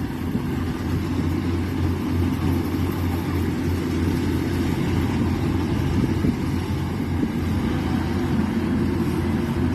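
Rice combine harvester running steadily, a constant engine noise that sits mostly low with a steady hum.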